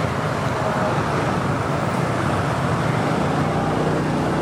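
Steady road traffic noise: engines and tyres of passing vehicles.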